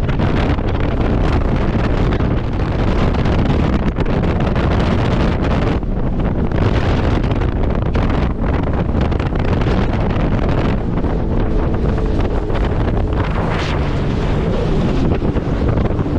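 Wind buffeting the microphone while riding a Sea-Doo personal watercraft over open water, with the jet ski's engine running steadily underneath.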